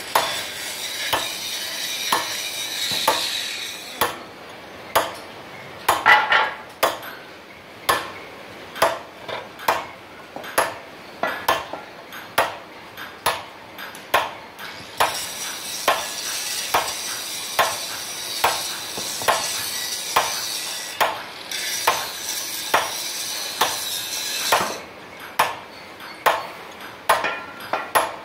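Hammer striking a drift to drive a ball bearing into the cast gearbox housing of an oil expeller: a steady series of sharp metallic knocks, about one a second, each ringing briefly.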